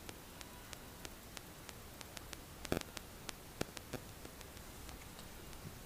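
Shallots, dried red chillies and other whole ingredients dropped by hand into a mixer-grinder jar: a few light clicks and taps against the jar, the loudest about three seconds in, over a faint steady hiss and a faint regular ticking.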